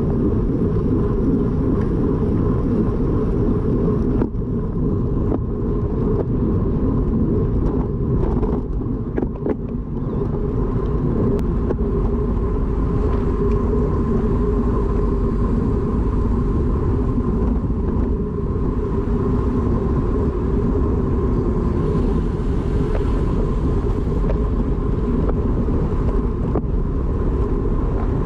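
Steady low rumble of wind and road noise on a moving microphone, with a faint steady tone above it.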